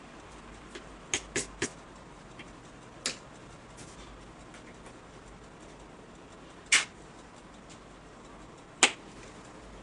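Sharp clicks and taps of painting tools being handled below the easel: three quick ones about a second in, a single one at about three seconds, and two louder ones near the end, over a faint hiss.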